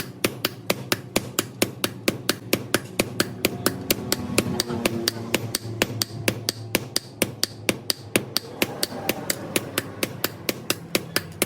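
Rapid, evenly spaced hammer blows on steel, about five a second, keeping a steady rhythm, as a blade is forged.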